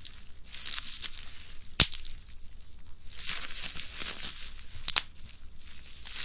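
Plastic bubble wrap being crushed by hand: crackling and crinkling plastic with scattered small pops, and one loud sharp pop a little under two seconds in and another about five seconds in.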